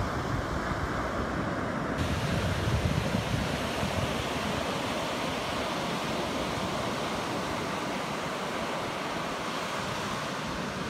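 Ocean surf breaking on a sandy beach: a steady wash of waves, with light wind rumbling on the microphone in the first few seconds.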